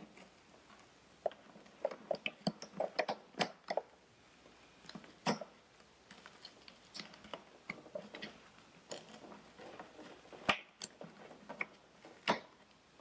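Irregular small clicks and knocks of hard plastic being handled: hands working the bulb sockets, wiring and a black plastic piece on the back of an Infiniti G37 tail light housing, with a quick run of clicks a few seconds in and a few single sharper knocks later.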